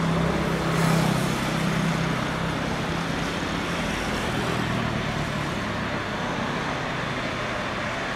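Steady road traffic noise with a low engine hum that is strongest in the first second and fades away about five seconds in.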